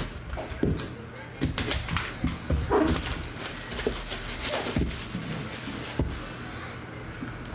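Plastic shrink wrap crinkling and tearing as it is stripped off a sealed trading-card box, with irregular crackles, clicks and light taps of the box being handled.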